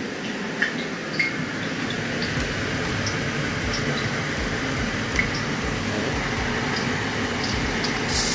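Steady hiss with scattered small crackles from oil heating in a steel wok on a gas stove. Just before the end a louder sizzle starts as pieces of seasoned salmon go into the hot oil.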